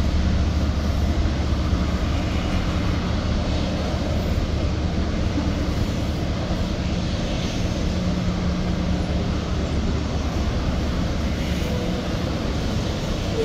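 Covered hopper cars of a CSX manifest freight train rolling past in a steady, unbroken rumble.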